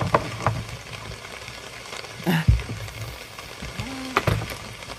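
Scattered clicks, knocks and rustling from objects being handled, with a small electric motor humming briefly about four seconds in.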